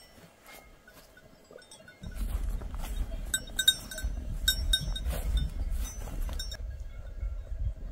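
Small livestock bells clinking in quick, irregular strikes for a few seconds, stopping near the end. Under them is a low rumble that starts about two seconds in.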